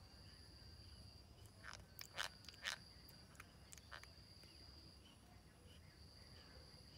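Near silence with a steady high-pitched trill of crickets. A handful of sharp clicks come close together about two to three seconds in.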